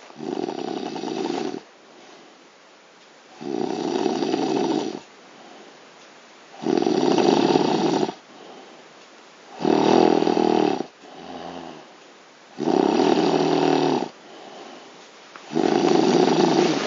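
A man snoring loudly in deep sleep: six long snores about three seconds apart, each lasting a second or more, with quieter breathing between them.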